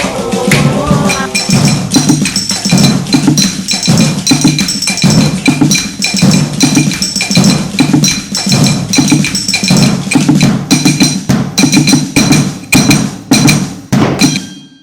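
Percussion ensemble playing a batucada-style rhythm on household utensils: dense, fast strikes over an evenly pulsing low drum-like beat, with a steady ringing metallic tone from about a second and a half in. The playing stops abruptly just before the end.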